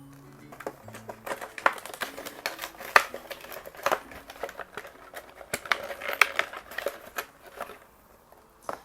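Plastic toy packaging crinkling and crackling in irregular bursts as it is handled and opened, dying down near the end.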